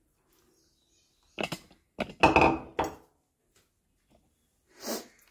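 Kitchen dishes and a pot being handled: two short knocks about a second and a half in, then a louder clatter lasting under a second, and one more short knock near the end.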